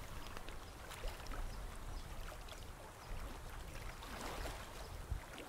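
Faint lakeshore ambience: light wind rumbling on the microphone and small waves lapping at the rocky shore.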